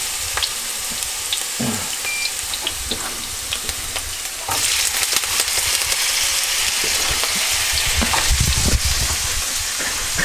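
Hash brown potatoes frying in hot grease: steady sizzling with scattered popping crackles, growing louder about four and a half seconds in.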